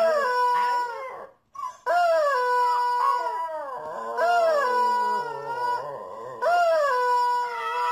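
Husky puppy howling along with a squeezed rubber chicken toy: four long squawks, each starting with a short rise and then held steady, about every two seconds, with the puppy's howl rising over them.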